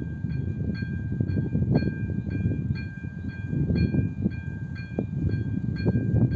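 Electronic warning bell of an AŽD 97 railway level crossing, ringing about twice a second to warn that a train is due, over a low rumbling noise.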